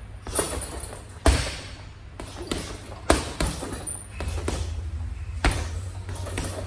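Boxing gloves punching a heavy bag: about seven dull thuds at an uneven pace, the loudest two early on, over a steady low hum.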